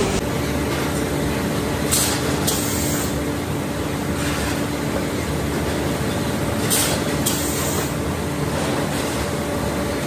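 Battery-factory machinery running steadily with a constant hum, broken by two pairs of short high hisses.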